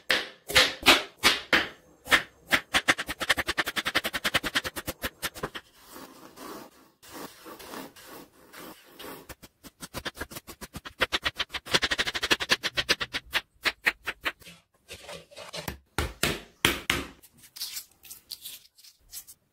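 Kitchen knife chopping on a wooden cutting board in fast rhythmic runs of strokes, through onions and then garlic. Near the end, sparser cracking taps of eggshell being broken and peeled.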